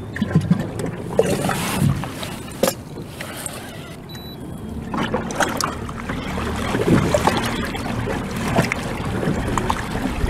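Wind-driven chop slapping and splashing against a fishing kayak's hull, with irregular knocks.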